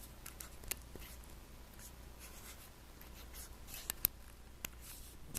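Faint handling noise: soft rustling with a few scattered light clicks, the sharpest two close together about four seconds in.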